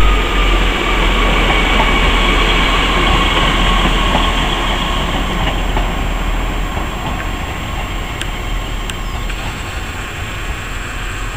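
Class 150 Sprinter diesel multiple unit pulling away under power, its underfloor Cummins diesel engines running with a whine that sinks slightly in pitch at first, the sound growing gradually fainter as it moves off. A couple of sharp clicks come near the end.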